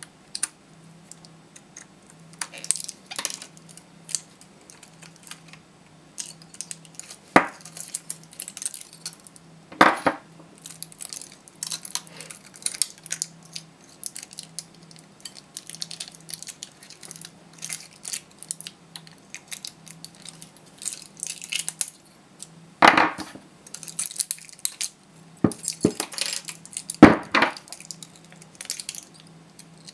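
Pliers cutting and prying the nickel connecting strips off laptop-battery 18650 lithium-ion cells, with cells clinking against each other: irregular metallic snips, clicks and scraping. Three sharper snaps stand out, about a third of the way in and twice near the end.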